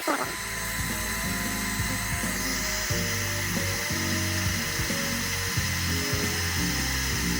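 Electric heat gun blowing steadily: a fan hiss with a thin, steady whine. Background music with changing notes plays underneath.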